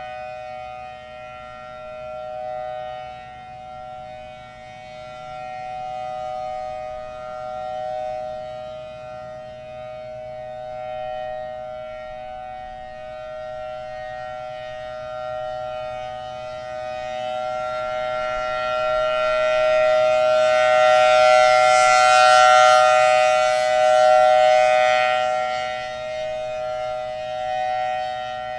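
Federal Signal Thunderbolt 1000T outdoor warning siren sounding a steady two-tone chord that swells and fades as the head rotates, loudest about three-quarters of the way through with a rush of air. It sounds worn, which the owner puts down to too little air reaching the chopper from its C-series blower, perhaps because the head is not properly bolted to the flange.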